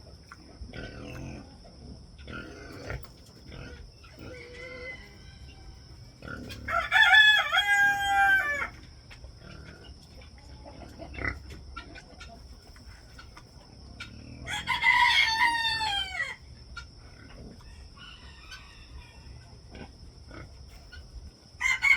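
A rooster crowing: two long crows about seven and fifteen seconds in, and a third beginning at the very end, with chickens clucking softly in between.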